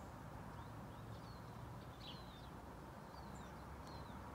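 Faint outdoor ambience: scattered short bird chirps, a few a second, over a steady low background rumble.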